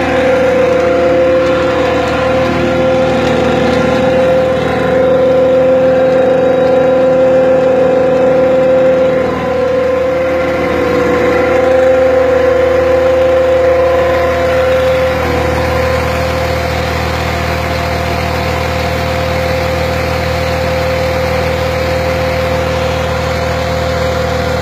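Engine-driven tubewell turbine pump running steadily under test: a continuous engine drone with a strong steady hum, a little quieter from about fifteen seconds in, over the rush of water pouring from the discharge pipe.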